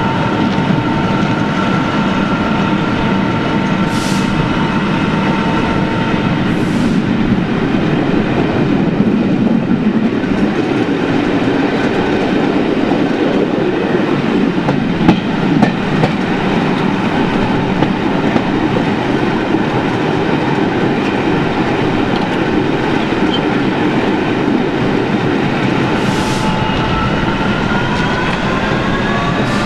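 Passenger train running on the rails, heard from an open carriage window: a steady wheel-on-rail rumble with some clickety-clack over the pointwork. A steady whine stops about six seconds in, and a rising whine begins near the end as the train picks up speed.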